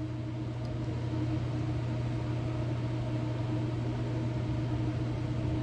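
A steady low mechanical hum from a machine running in the room, even and unchanging.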